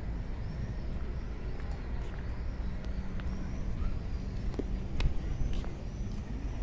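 Outdoor city ambience: a steady low rumble of distant traffic, with scattered sharp clicks, one louder about five seconds in, and faint high chirps.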